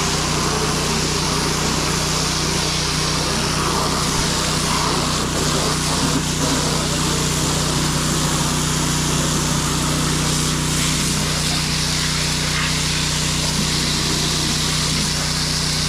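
Gas-engine pressure washer running steadily, its small engine giving a constant hum under the hiss of the water spray.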